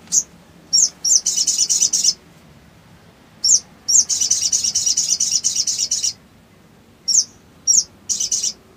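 Male olive-backed sunbird (sogok ontong) singing: sharp high chips and fast, chattering twitter trills. The longest trill runs about two seconds from around four seconds in, and a few short calls and a quick rattle come near the end.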